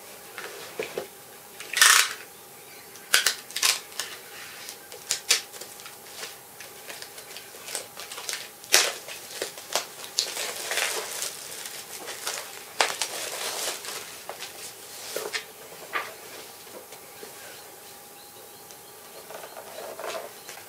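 A large book being handled: irregular short rustles, taps and page turns, the loudest about two seconds in.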